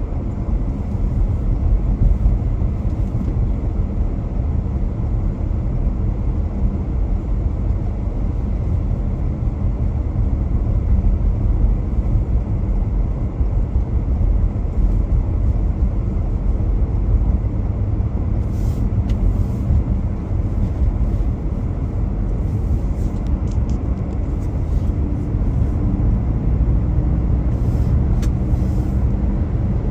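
Car driving along a road: a steady low rumble of tyre and engine noise, with a few short hisses in the second half.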